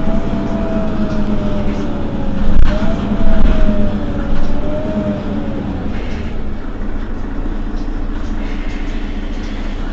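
Mercedes-Benz Citaro facelift city bus standing with its diesel engine idling steadily. A wavering whine runs over the idle and stops about six seconds in, and there are a couple of louder knocks around two and a half to three and a half seconds in.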